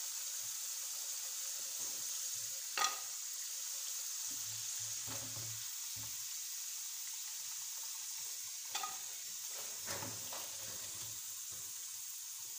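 Potato chips deep-frying in hot oil in a pan: a steady sizzle. A few light clicks of steel tongs against the pan come as the finished chips are lifted out.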